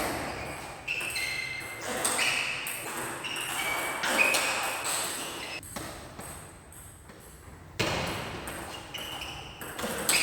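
Indoor court game being played: a series of sharp hits spread over several seconds, with short high-pitched ringing tones between them.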